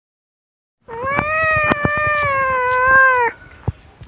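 A tabby kitten meowing: one long meow of a little over two seconds, starting about a second in.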